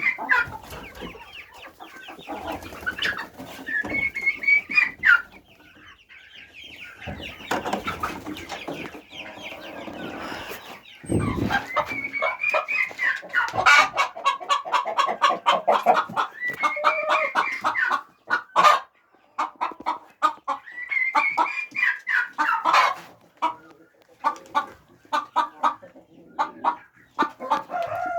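A flock of domestic chickens clucking and calling, with several longer drawn-out calls among many short sharp clicks.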